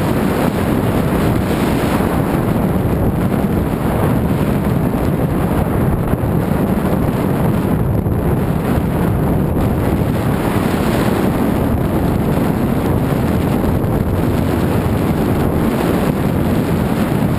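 Steady, loud wind noise on the microphone of a camera carried by a downhill skier moving at speed, with the skis running over groomed snow beneath it.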